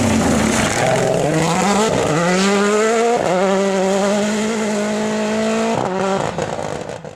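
Rally car engine accelerating hard, its note climbing through two quick upshifts about two and three seconds in. It then holds a high, steady note before breaking off twice near the end as the driver lifts.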